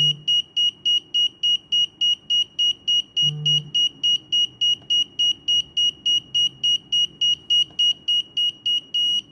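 Gas-detector alarm beeping rapidly, about four short high-pitched beeps a second at a steady pitch, with one slightly longer beep near the end. It is the warning of a homemade carbon monoxide detector whose MQ7 sensor is reading gas above its danger level.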